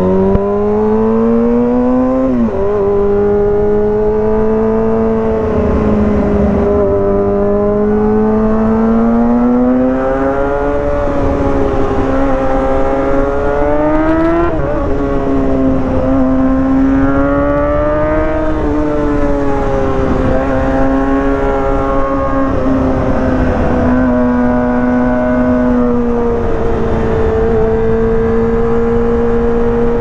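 2023 Kawasaki ZX-6R's 636 cc inline-four engine under way. It climbs in pitch pulling away and drops with an upshift about two and a half seconds in, then holds a steady riding note that rises and falls with the throttle, with another quick climb and shift around the middle.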